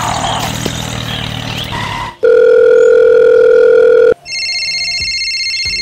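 A noisy jumble, then a very loud steady electronic beep lasting about two seconds. It is followed by a higher, rapidly fluttering electronic ring like a telephone ringer.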